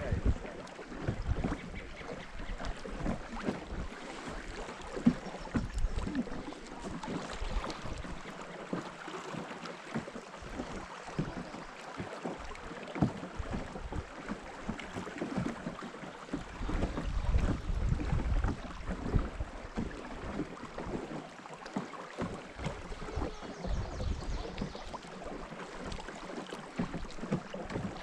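Wind buffeting the microphone in uneven low rumbles, with scattered light knocks and splashy noise from a small boat on the water.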